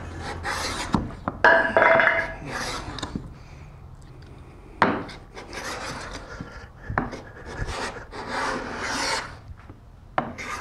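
Veritas cabinet scraper pushed in repeated strokes along a cherry board, its blade shearing off fine shavings with a rasping scrape. There are several strokes with short gaps between them, and a sharp knock a little before the middle.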